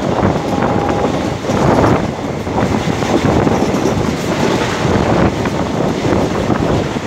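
Passenger train running at speed, heard from the side of a coach: a steady rumble and rattle of wheels on the rails, mixed with wind buffeting the microphone.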